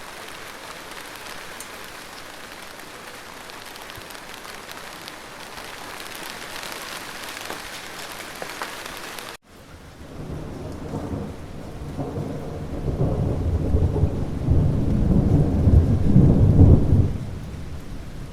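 Steady rain hiss that cuts off abruptly about nine seconds in. A low thunder rumble takes over with fainter rain beneath it, swelling for several seconds and then dropping away near the end.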